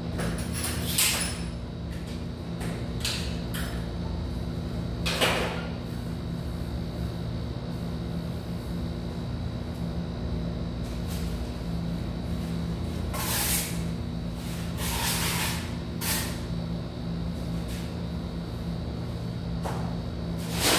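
Occasional sharp clicks and knocks of hand tile work, tools and plastic tile-leveling clips handled on a newly laid tile floor, over a steady low hum.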